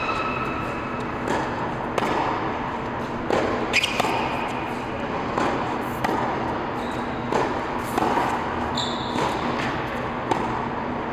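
Tennis rally: a tennis ball struck back and forth with racquets and bouncing on a hard court, a sharp pop about every second, echoing in a large indoor tennis hall.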